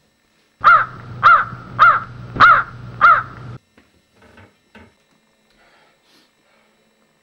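A bird's harsh cawing call, five times in a row about half a second apart, over a low hum that cuts off suddenly after the last call. A few faint clicks follow.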